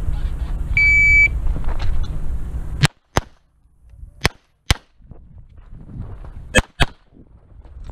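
Shot timer's start beep, a steady tone of about half a second, about a second in. Then six pistol shots fired in three quick pairs over the next four seconds.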